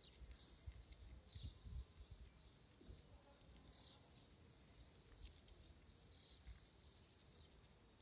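Faint, irregular crunching of two kittens chewing dry cat kibble.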